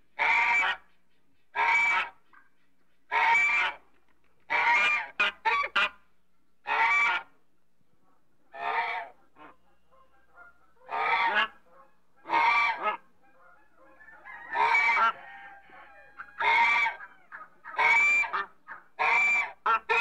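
African geese honking: loud, nasal honks repeated about every one to two seconds, with a quick run of short honks about five seconds in and a longer pause near the middle.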